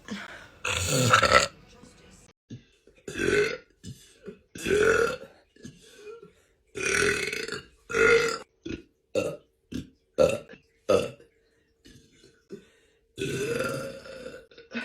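A woman belching again and again: about ten separate burps, a few long and drawn-out, the rest short, cut one after another with brief silences between them.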